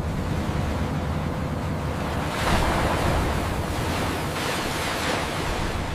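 A continuous rushing noise from a load of shredded scrap metal sliding out of a tipping dump truck into a pit, growing louder about two and a half seconds in.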